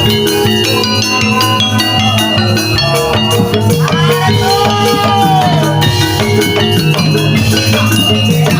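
Loud Javanese gamelan music accompanying a jaranan dance: ringing metallophone notes over a steady drum beat, with a tone that bends up and back down about four to five seconds in.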